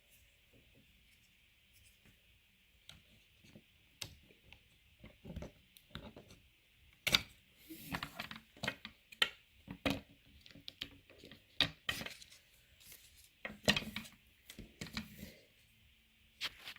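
Small plastic toy parts of a squishy anatomy model being handled and fitted together: irregular clicks, taps and rustles, busiest in the middle stretch and stopping about a second before the end.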